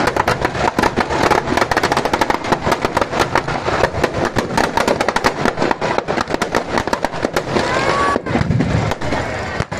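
Firecrackers packed in a burning Ravana effigy going off in a rapid, dense string of crackling bangs, which thins out near the end. Crowd voices sound underneath.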